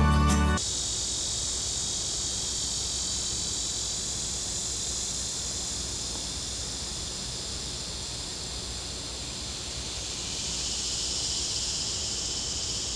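Steady chorus of insects: an even, high-pitched drone that carries on unchanged. Background music cuts off about half a second in.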